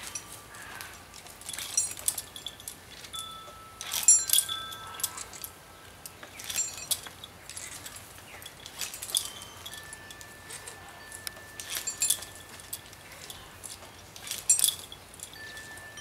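Metal climbing gear (ascenders and carabiners on a harness) clinking in a cluster about every two and a half seconds as a climber hauls himself up a rope. Metal wind chimes ring alongside in long, thin, held tones.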